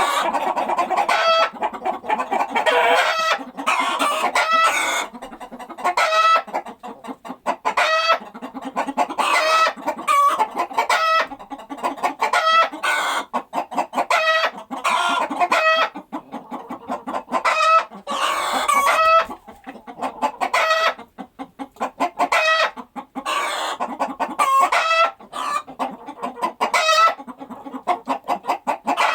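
A flock of chickens clucking continuously in short, overlapping pitched calls, the hens' calls mixed with rooster crowing.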